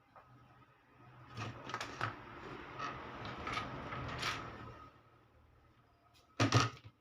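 Workbench handling noise: rustling and several sharp clicks and taps for a few seconds, then one loud knock about six and a half seconds in, over a faint steady hum.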